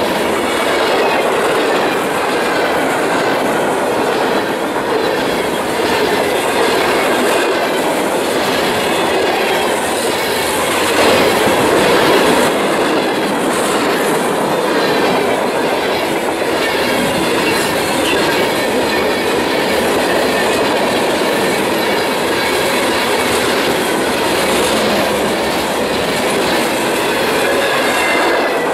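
Freight train of covered hoppers and boxcars passing close at speed: steady rumble and rattle of steel wheels clicking over the rail joints, with faint high wheel squeal at times.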